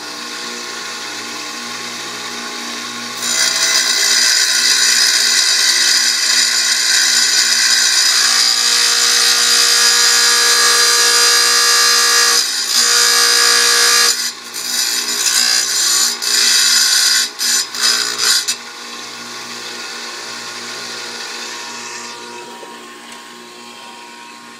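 Wet tile saw running and cutting a slit into a glass bottle ring. A steady motor hum comes first, then about three seconds in a loud, high grinding as the blade bites the glass for about ten seconds. A few shorter cuts follow, then the motor runs alone and fades near the end.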